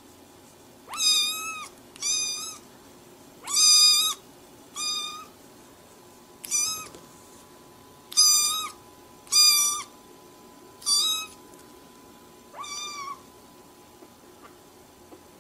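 A kitten meowing over and over in high-pitched cries: nine short meows, each about half a second long and roughly a second apart. The meows stop near the end.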